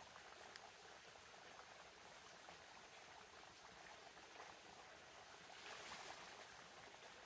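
Near silence: a faint, steady outdoor hiss with a few faint ticks.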